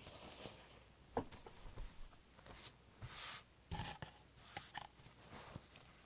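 Hands handling a sheet of paper on a cutting mat: quiet rustling, crinkling and small taps, with a louder half-second hissing crinkle about three seconds in.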